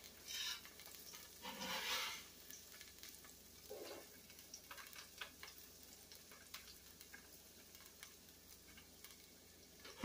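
Diced onions sautéing faintly in hot oil in a pot, with a spatula stirring and scraping through them a few times; the loudest scrape comes about two seconds in.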